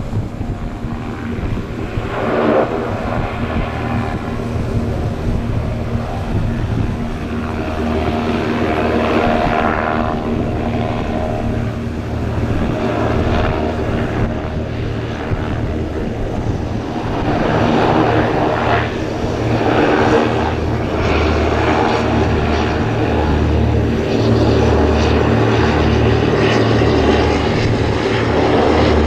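Passenger hovercraft running at speed over the water: a steady drone from its twin ducted propellers and engines, with a rushing noise over it. It grows louder in the second half as the craft comes close.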